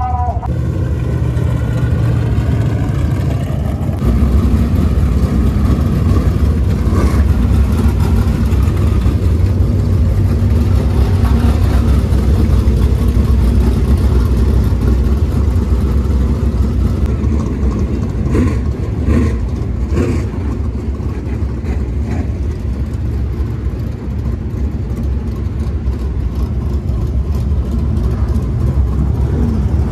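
Dirt-track race car engines running: a loud, steady low rumble that swells about four seconds in, with a few brief clicks about two-thirds of the way through.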